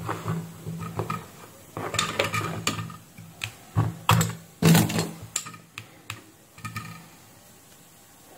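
Small tools and multimeter test probes being picked up and set down on a workbench: irregular light clicks and knocks, the loudest few about four to five seconds in.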